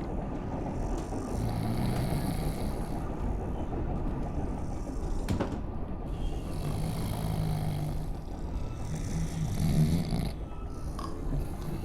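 A person snoring in several long snores over the steady rumble of a moving train, with a single sharp click about five seconds in.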